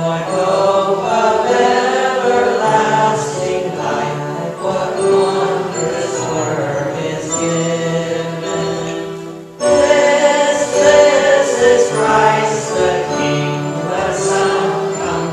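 A hymn sung by several voices with instrumental accompaniment, with a brief break between phrases about ten seconds in.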